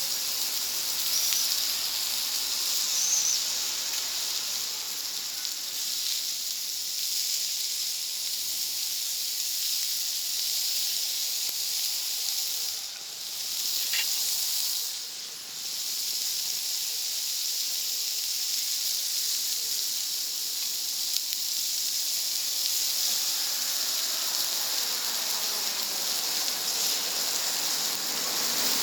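Food sizzling on a hot plancha over a wood fire: a steady hiss that dips briefly twice about halfway through.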